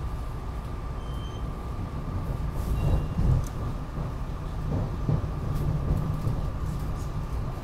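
SEPTA Regional Rail passenger car running, heard from inside the car: a steady low rumble with a constant hum on top and a few knocks from the running gear, the loudest about three seconds in.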